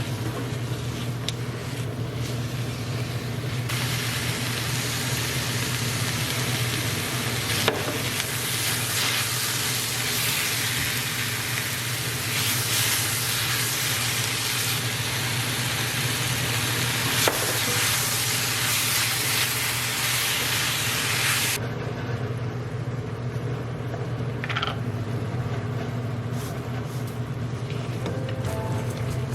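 Food sizzling and being stirred in a hot frying pan. The hiss is steady with a few knocks from the utensil, then falls away suddenly about three-quarters of the way through.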